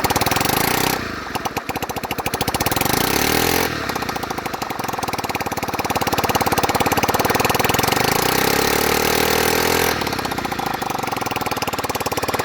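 Honda Metropolitan scooter's small single-cylinder four-stroke engine running with a rapid, even exhaust pulse. The revs dip about a second in, then climb twice and settle near the end. The owner judges it sounds more like an exhaust leak, or no exhaust at all, than a rod knock.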